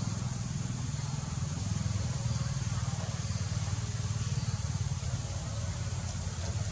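Steady low rumble under an even, constant hiss, with no distinct event.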